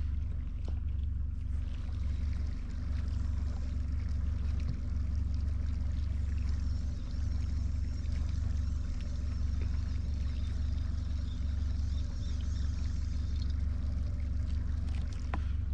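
A bass boat's bow-mounted electric trolling motor running at a steady low hum, with a few faint clicks over it.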